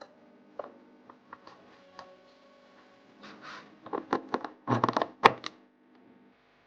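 Faint background music with scattered sharp clicks, then a burst of loud crackling and knocking about four to five and a half seconds in.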